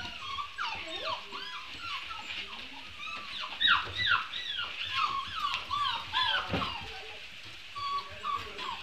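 A litter of young puppies whimpering and yipping: many short, high calls that rise and fall, several puppies at once. They are busiest in the middle.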